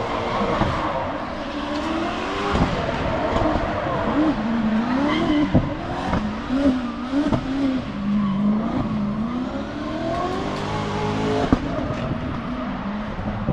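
A drift car's engine revving up and down in repeated surges as it slides, with tyre squeal from the smoking tyres. There is a single sharp pop about eleven and a half seconds in.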